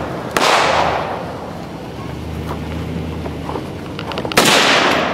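AK-pattern rifle fired twice, two single shots about four seconds apart, each with a long fading echo.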